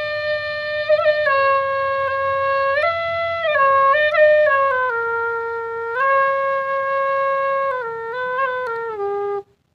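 Bansuri, a side-blown bamboo flute, playing a slow melody of long held notes that step up and down, with quick ornamental turns, breaking off shortly before the end.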